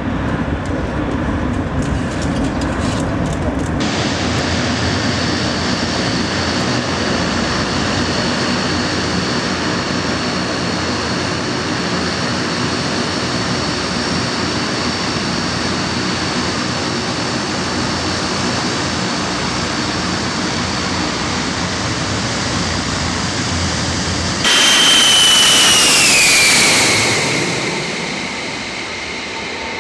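Aircraft engines across edited spotting clips. First a Boeing 747's four jet engines on climb-out. Then, from about four seconds in, the four turboprop engines of an Antonov An-12 running on the ground with a steady high whine. Near the end comes a sudden louder jet, the four-engine E-3 AWACS on approach, its whine falling in pitch.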